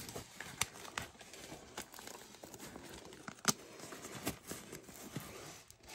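Faint rustling and crinkling of a fabric drawstring tote as it is handled and its drawstring loosened, with scattered small clicks.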